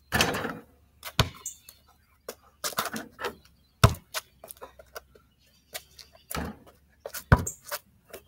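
A basketball hitting the hoop and bouncing on the ground, with sharp knocks about a second in, near four seconds and just past seven seconds, between stretches of rustling noise.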